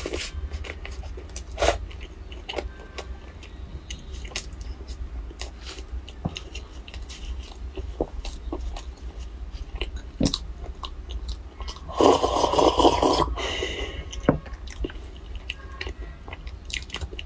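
Close-miked chewing and crunching of cooked crab, with many short sharp clicks. About twelve seconds in comes a louder rubbing, scraping noise lasting about a second and a half.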